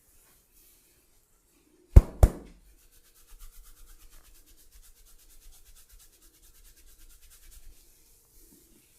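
Two sharp smacks of a barber's hands on a client's body, a quarter second apart, then a fast, even run of rubbing strokes during a massage.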